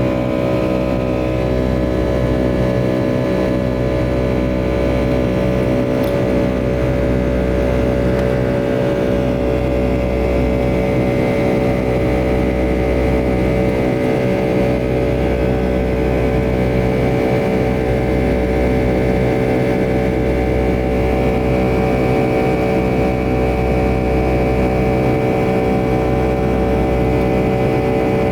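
Jet engines of a Boeing 757-200 heard from inside the cabin, running steadily with a many-toned drone over a deep rumble.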